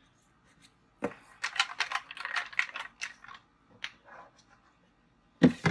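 Paper slips rustling and crinkling in the hands, a quick run of small clicks and rattles, then a single loud thump near the end.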